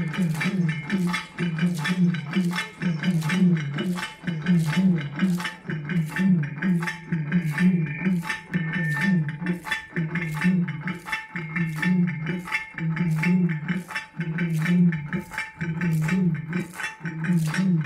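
Rhythmic metallic jingling, a little over two sharp strokes a second in a steady beat, over a low pulsing accompaniment: the music of an Oyilattam folk dance.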